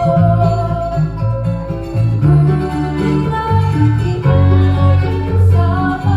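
Background music with acoustic guitar and a strong bass line, with some singing.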